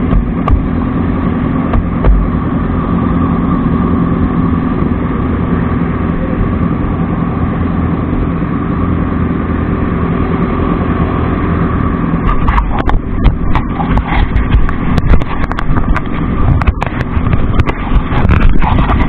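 Motorcycle engines idling steadily. From about twelve seconds in, irregular knocks and buffeting on the microphone come in over the idle.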